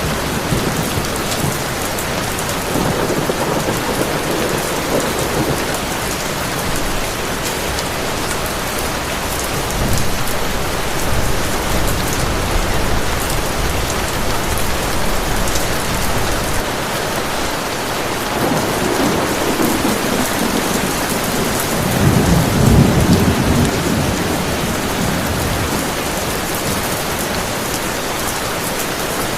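Heavy rain pouring steadily, with rolling thunder rumbling several times; the biggest roll swells about three quarters of the way through.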